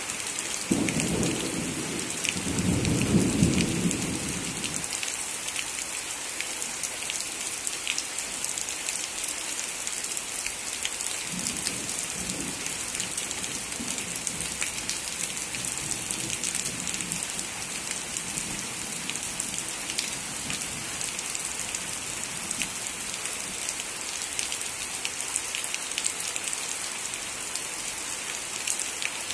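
Heavy rain falling steadily on a tin roof and foliage. A low rumble of thunder starts about a second in and lasts a few seconds, and fainter rumbles follow in the middle.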